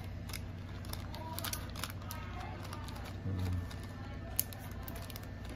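Light clicks and handling noises of small parts being picked up and moved, over a steady low hum, with one sharper click near the end.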